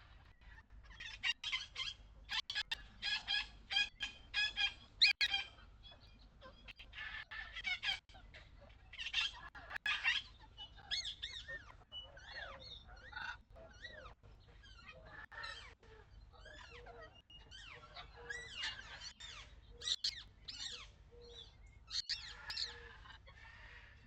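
Birds calling over and over in short, high, chirping and warbling calls that come close together, over a steady low rumble of wind.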